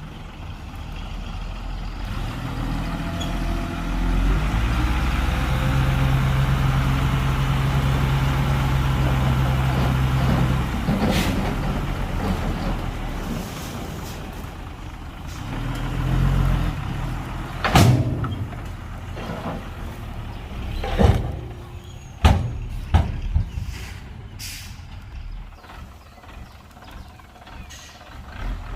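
Heavy diesel engine of earthmoving machinery rising to a steady, loud working pitch for several seconds, then dropping back. Several sudden sharp sounds follow in the second half.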